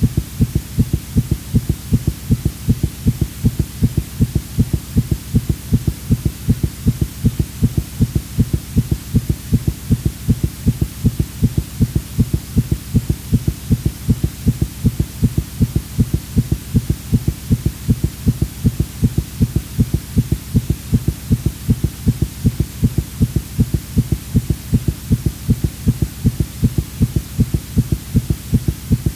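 Heartbeat sound effect: a low thumping pulse repeating at a steady, even rate, over a low hum.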